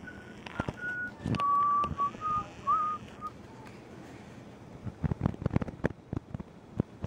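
Whistling: a string of short, steady notes that step down in pitch, with one small upward slide, over the first three seconds. A run of sharp clicks and knocks follows near the end.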